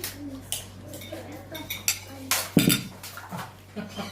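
Scattered clinks and clatters of hard objects being handled, with a louder clatter about two and a half seconds in.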